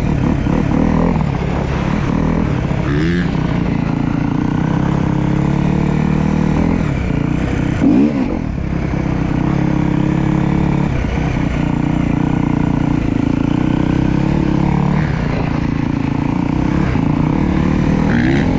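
Honda CRF250R dirt bike's single-cylinder four-stroke engine running steadily as it rides, its pitch shifting a little with the throttle, with a short louder rev about eight seconds in.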